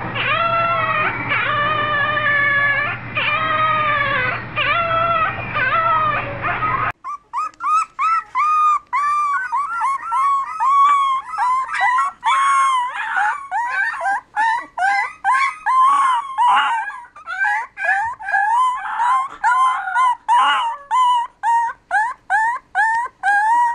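Puppies howling. First a puppy gives long, wavering howls over a low steady hum. About seven seconds in, a tricolour beagle-type puppy takes over with short yipping howls that rise and fall, about two a second.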